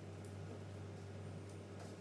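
Quiet room with a steady low hum, and a couple of faint, brief rustles as hands work a cookie cutter through soft icing-sugar dough on the counter.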